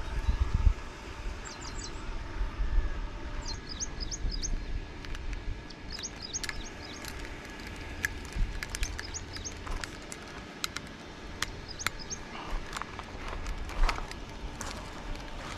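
Small birds chirping in short, high calls repeated many times over a steady outdoor background, with a low rumble on the microphone in the first second.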